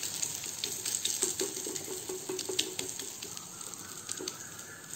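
Noodle-and-egg omelette mixture sizzling in oil in a nonstick frying pan, with light clicks and scrapes of a metal spoon pressing it flat. The sizzle eases off slightly toward the end.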